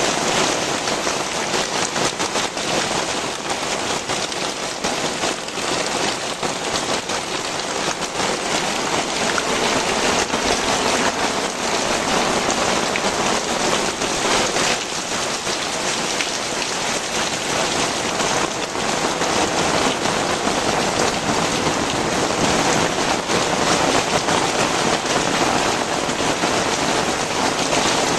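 Heavy rain pouring down steadily, a dense patter of drops hitting the ground and surfaces.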